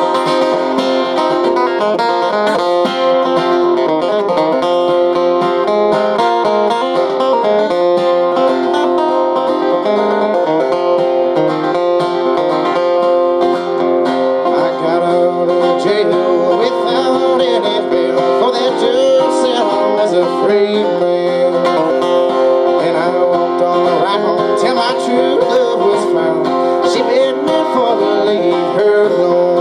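Bluegrass acoustic guitar played fast with a flatpick: an instrumental break of quick single-note runs over the tune's chords, getting busier about halfway through.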